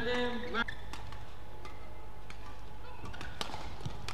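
A player's shout, held for about half a second and dropping in pitch as it ends, then the hush of the hall with a few faint clicks near the end.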